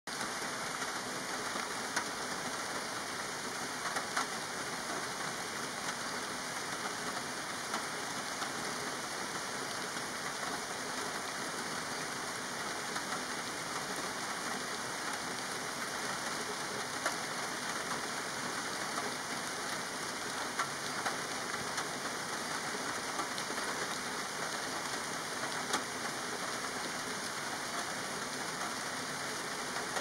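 Steady rain: an even hiss with a few louder drop taps now and then.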